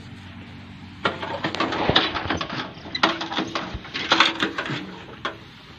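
Manual knapsack sprayer in use: clattering and squeaking from the hand pump in three bursts, starting about a second in.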